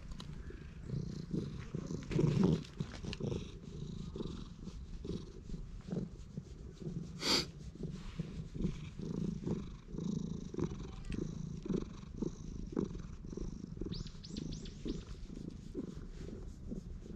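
A stray cat purring steadily close up, the purr pulsing about twice a second while a hand scratches its head and chin with a soft rustle of fur. There is a single sharp click about seven seconds in.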